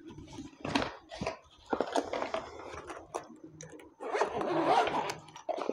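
Rustling, scraping and light knocks of a boxed gimbal being unpacked, then a zip on its soft carrying case being pulled open about four seconds in.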